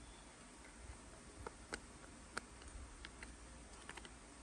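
Faint, scattered small clicks and ticks as the plastic guard and shoe of a DeWalt DCS438 cordless cut-off tool are handled, about half a dozen in all.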